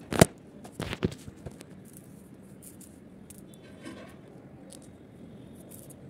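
Small shell pieces being handled and set down on glued cardboard: a sharp click about a quarter second in, a few more clicks and taps about a second in, then faint light ticks.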